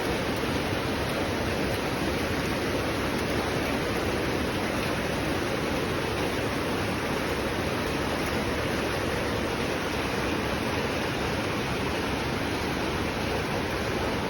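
Light rain shower falling steadily: an even hiss with no separate drops standing out.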